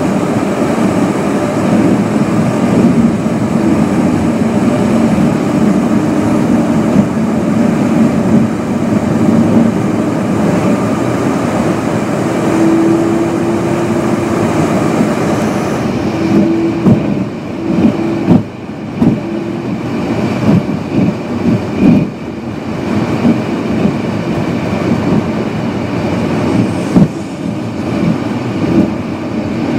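Steady rumble of a car driving at highway speed, heard from inside the cabin: tyre and engine noise. About halfway through the sound turns duller and a run of irregular thumps sets in.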